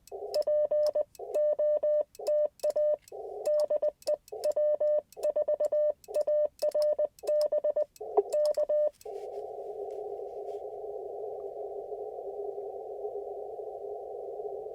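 Morse code keyed as the Icom IC-705's CW sidetone, a pure tone near 600 Hz in quick dits and dahs, with dead silence between them. About nine seconds in the keying stops and the receiver's band hiss takes over, narrowed to a band of pitches by the radio's CW filter while he listens for a reply on 30 meters.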